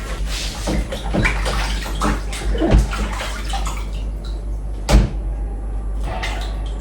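Kitchen tap water running into a sink while food is rinsed under it, with a few sharp knocks of things set against the sink; the loudest come about three and five seconds in.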